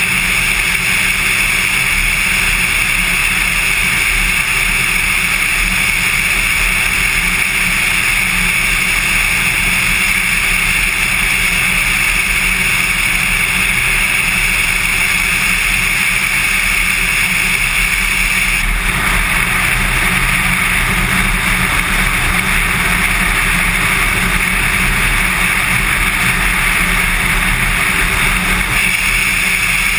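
Cessna 182's piston engine and propeller running steadily, mixed with rushing air, as the plane descends on approach to land. The sound shifts slightly about two-thirds of the way through.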